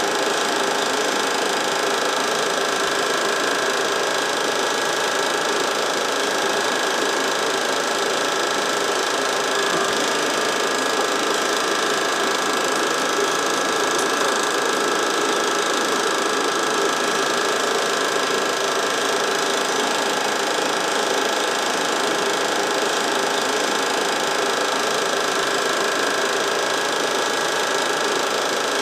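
Home-movie film projector running, a steady mechanical whir with several constant tones.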